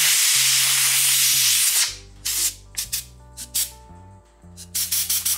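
Compressed-air blow gun blasting air through a chainsaw air filter to clear dust: one long hiss lasting about two seconds, then a run of short quick bursts.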